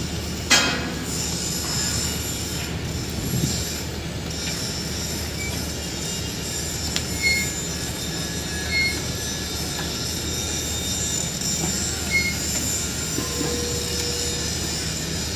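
Manitowoc 8500 crawler crane travelling on its steel tracks: a steady low diesel engine hum under a steady high-pitched squeal from the track links and rollers. A sharp clank comes about half a second in, and a few short high squeaks follow later.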